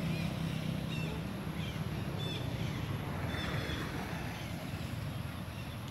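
A motor engine running steadily as a low rumble, with faint, short, high chirps scattered over it.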